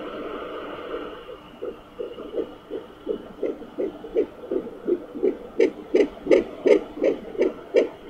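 Fetal heartbeat picked up by a Sonoline B pocket fetal doppler: fast, even whooshing pulses at about two to three beats a second over a hiss of static. The beat is faint at first, settles in after about a second, and grows louder and sharper over the last few seconds.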